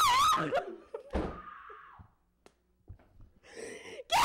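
A woman's high, wavering scream that breaks off about half a second in, then a single heavy thud about a second in. Another scream starts right at the end.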